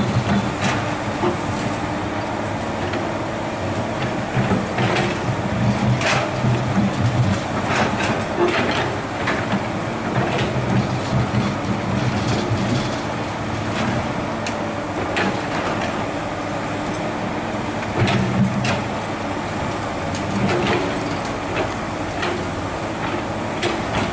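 Komatsu PC200 hydraulic excavator's diesel engine working under load, swelling and easing as the arm digs. The steel bucket scrapes and knocks against broken shale, with repeated sharp clanks and rattling rock, busiest in the middle stretch and again near the last quarter.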